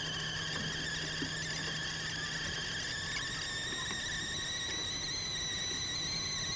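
Edited-in sound effect: a high whistling tone with overtones, rising slowly in pitch, that starts and cuts off abruptly. A steady low hum lies beneath it.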